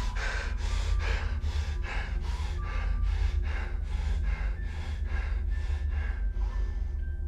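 A man breathing hard and fast through his mouth, rapid even breaths about two or three a second, over a steady low hum.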